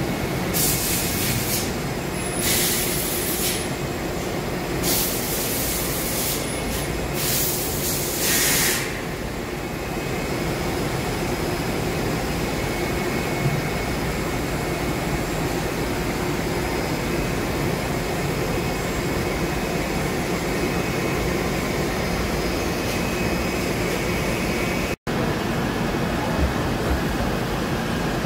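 Steady machine-shop drone from running equipment, with several short hisses in the first nine seconds.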